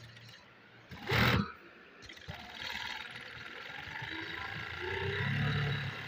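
Industrial pico (picot-edging) sewing machine stitching along the edge of a dupatta, running steadily from about two seconds in. A loud, brief rush of noise about a second in comes before it.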